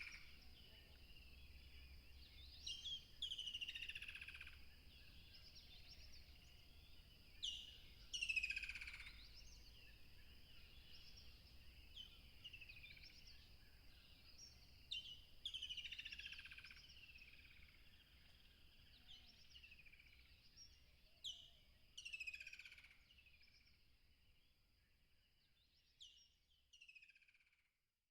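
A songbird repeating the same short song phrase about every four to seven seconds, each a sharp high note followed by quick sweeps falling in pitch. Behind it is a faint steady high hiss and a low rumble, and everything fades out near the end.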